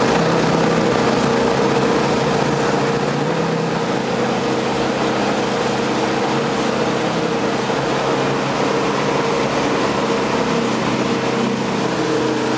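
Malibu Wakesetter 23 LSV wake boat's inboard engine running steadily under load at surf speed, mixed with the rushing, churning water of its surf wake.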